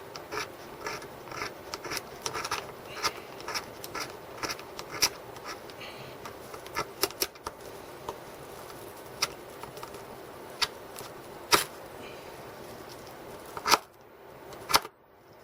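Ferro rod scraped with the metal buckle of a paracord bracelet to strike sparks: quick rasping strokes about two or three a second for the first several seconds, then sparser, sharper single strokes, the loudest near the end.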